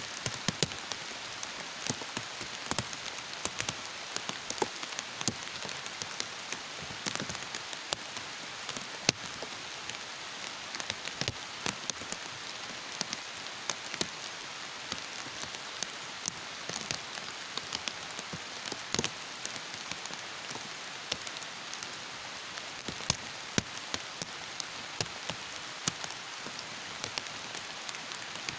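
Heavy rain falling steadily, with many sharp individual drops and drips ticking irregularly over the steady hiss.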